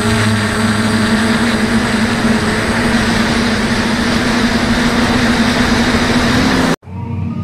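DJI F450 quadcopter's brushless motors and propellers humming steadily in flight, heard close up from a camera on the frame, with wind noise. The hum cuts off abruptly near the end.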